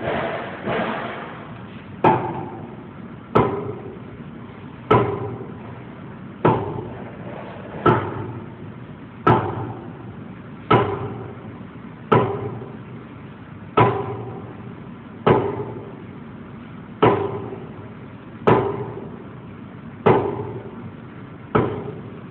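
Sledgehammer blows on a concrete block, struck at an even pace about every one and a half seconds, about fourteen in all, each a sharp crack with a brief ringing after it.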